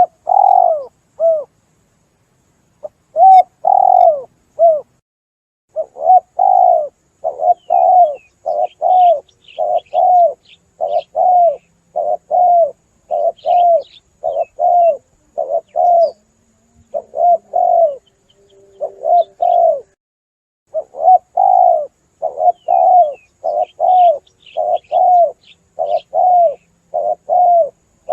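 Spotted doves (tekukur) cooing from a lure-call recording: a rapid run of short, falling coos, about one to two a second, broken by brief pauses. Faint high chirps of small birds sound above them.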